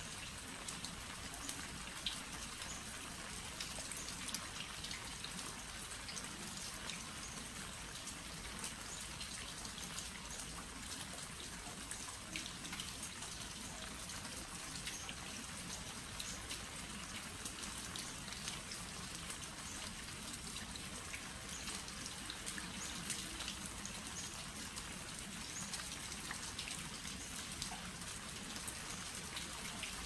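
Steady rain falling on glazed earthenware crocks (jangdok) and their lids: an even hiss with many small, sharp drop ticks scattered through it.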